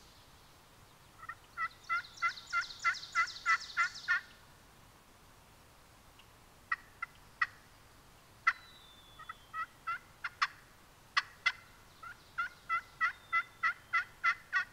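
Wild-turkey hen yelps made on a hand-held turkey call: a run of about ten yelps, then scattered sharp clucks and cutts, then another run of yelps near the end.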